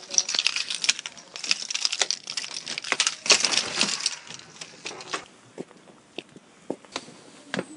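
Handling noise from a handheld camera: dense rustling and crackling of hands and clothing against the microphone for about five seconds. It then goes quieter, with scattered knocks of shoe footsteps on paving slabs.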